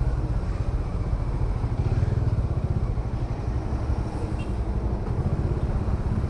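Bajaj Dominar 400's single-cylinder engine running while the bike is ridden, a steady low rumble.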